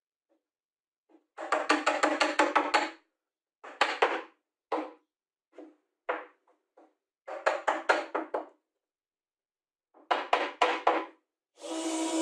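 Rapid wooden knocks in short clusters, several a second with pauses between, as a plywood block is tapped and pressed into place inside a plywood box that rings with each knock. Near the end a cordless drill starts running.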